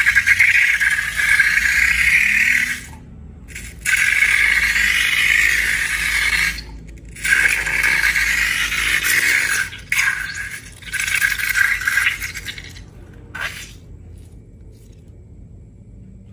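Rattling, scraping noise in four stretches of a few seconds each, with brief breaks between, fading to faint background noise about fourteen seconds in.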